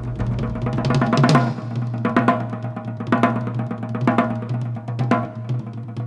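Drum-driven background music: a heavy drum beat about once a second over quick, lighter strikes and a held low tone.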